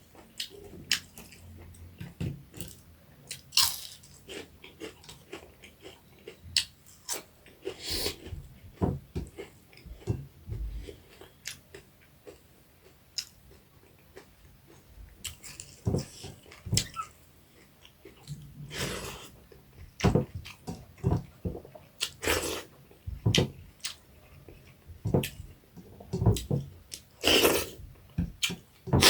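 Close-up eating sounds: chewing and crunching on crispy fried small rohu fish, with irregular sharp crunches and wet mouth clicks.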